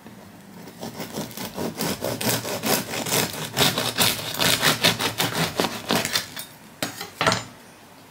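A knife sawing back and forth through the crisp crust of a freshly baked loaf on a wooden cutting board, a rapid run of rasping strokes for about six seconds. Two last separate strokes follow as the end slice comes free.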